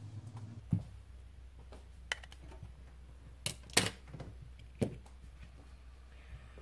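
A handful of separate sharp clicks and taps, about five spread over several seconds, from small hand tools and phone parts being handled on the bench, over a low steady hum.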